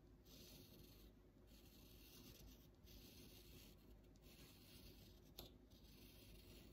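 Graphite pencil scratching across drawing paper in repeated hatching strokes, faint, each stroke a soft hiss of about a second with short gaps between. There is one small tick about two-thirds of the way through.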